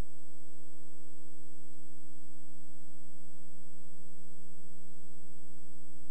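Steady electrical hum with a faint high whine over even hiss, unchanging throughout: the noise floor of a silent 16mm film transfer with no recorded sound.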